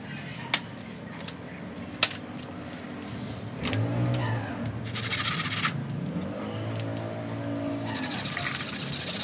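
A small hand tool picking and scraping old soil from the root ball of a ficus bonsai stump. There are two sharp taps in the first two seconds and short bursts of scraping about five and eight seconds in. Behind it, a motor vehicle engine's pitch rises and falls from about three and a half seconds in.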